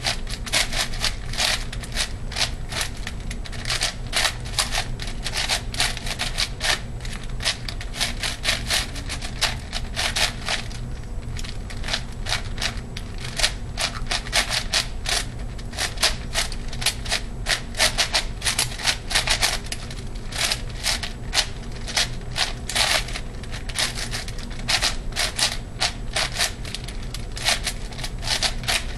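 Plastic layers of a ShengShou 8x8x8 puzzle cube clacking rapidly as it is turned by hand in a speedsolve, several turns a second, with a brief pause about eleven seconds in.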